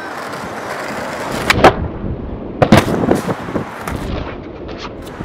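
Skateboard wheels rolling on concrete, with sharp clacks of the board popping and landing about one and a half seconds in and again near three seconds, then lighter clicks.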